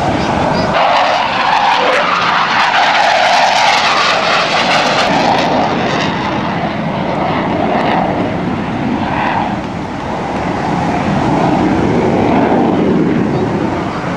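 Jet noise from Blue Angels twin-engine F/A-18 Hornet fighters flying past. It swells to a loud, rushing roar about a second in, eases off around ten seconds and builds again near the end.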